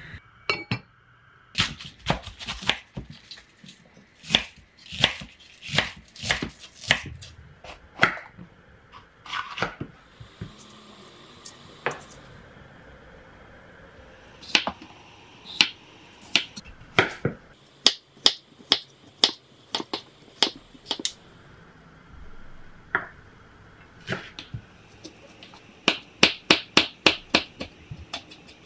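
Kitchen knife chopping vegetables on a wooden cutting board: sharp knocks of the blade on the board, irregular and in small clusters, ending in a quick run of about five chops a second.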